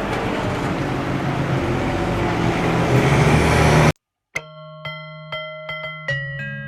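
A steady rushing background noise with a low hum for about four seconds, which cuts off abruptly. After a short silence, music of struck bell-like mallet notes starts, ringing out about twice a second.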